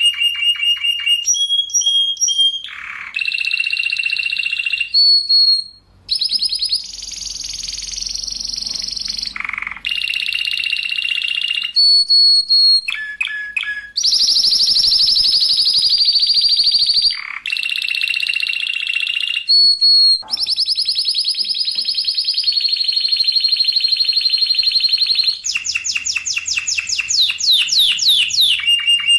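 Spanish Timbrado canary singing without pause: long rapid rolls held on one pitch for a few seconds each, broken by short clipped notes, with runs of fast falling notes near the end.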